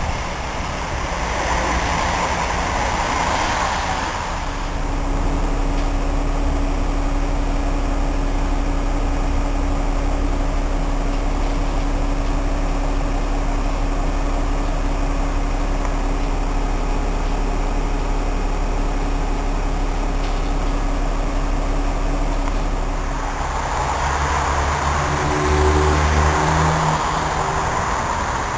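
Solaris Urbino 8.6 midibus's diesel engine running. For most of the clip it holds a steady drone with a fixed hum. Near the end the engine note changes and climbs in steps as the bus pulls away.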